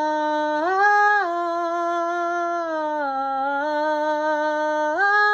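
A woman's solo singing voice holding the word "heart" as one long sustained note. The pitch steps up and back down twice.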